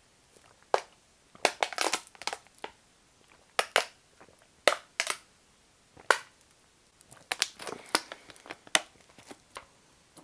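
Thin plastic water bottle crackling as it caves in under suction while being drunk from, in a series of sharp crackles and pops about a second apart.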